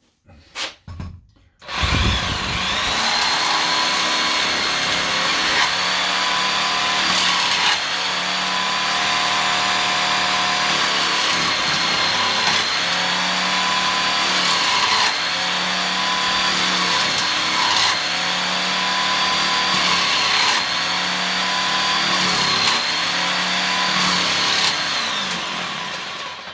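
Electric jigsaw cutting a 3/8-inch wooden dowel rod into short plugs. It starts about two seconds in and runs steadily with a high whine, then stops just before the end.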